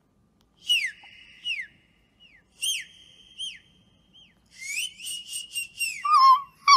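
A person whistling in short, high notes that slide downward, then a longer held note about five seconds in that breaks into quick falling notes, ending in louder, lower warbling notes.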